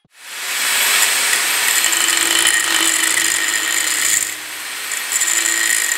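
Angle grinder running on steel pipe: a steady high whine with grinding hiss, easing for a moment just past the middle. It is grinding down the bottom of the root weld on a 3-inch pipe so the next pass can tie in.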